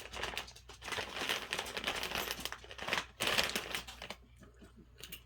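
Crinkling of a popcorn bag being handled, in two loud stretches over about the first four seconds, then fading to faint light rustles.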